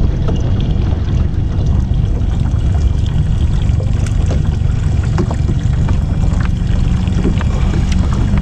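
Water splashing and lapping against a kayak's hull as a hooked barracuda is drawn in at the surface, with scattered short splashes and ticks over a steady low rumble.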